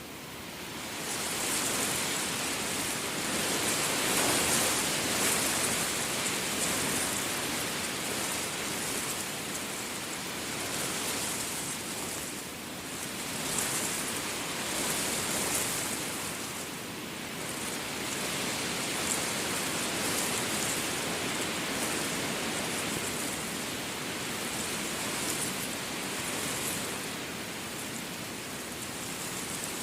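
Steady rain falling, an even hiss that fades up about a second in and then swells and eases in slow waves.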